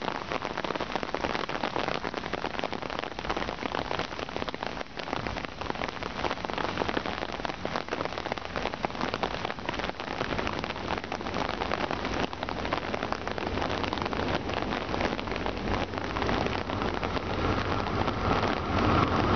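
Steady rain falling on the ground and foliage, a dense even hiss full of small drop ticks. A low rumble swells in under the rain near the end.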